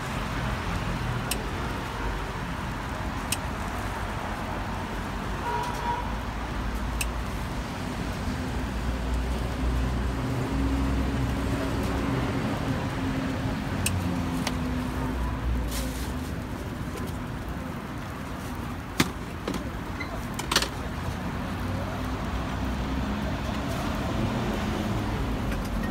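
Steady background rumble and hiss of a busy street-food stall, with a few sharp clicks and ticks scattered through and two louder clicks about two-thirds of the way in.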